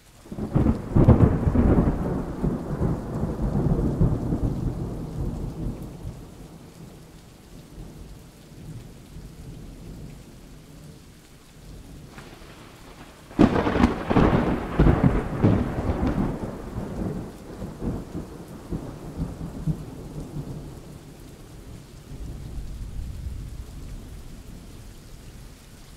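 Thunderstorm: steady rain with two long rolls of thunder. The first starts just after the beginning and rumbles for about five seconds; the second cracks in sharply about halfway through and rolls off over several seconds.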